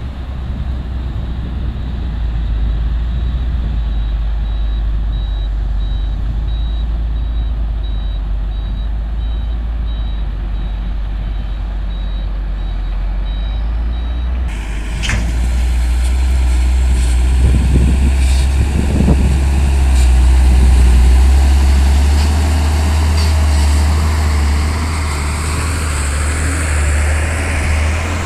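Heavy diesel machinery, an excavator and dump truck, running under load with a deep steady rumble, and faint regular beeping through the first half. About halfway the sound changes abruptly and the engine noise grows louder, with brief rising sweeps in pitch a few seconds later.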